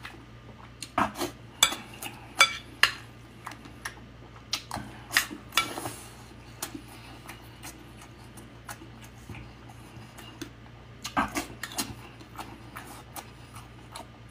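Close-miked eating: wet mouth clicks and chewing, with a metal spoon clinking and scraping on a ceramic plate, coming in clusters of sharp clicks separated by quieter spells.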